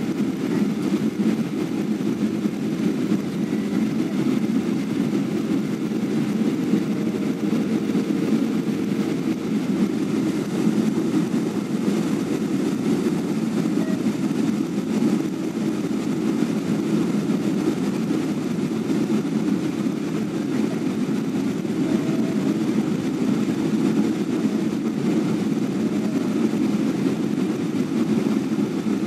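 Steady low cabin noise of a jet airliner descending on approach to land, heard from inside the passenger cabin at a window seat.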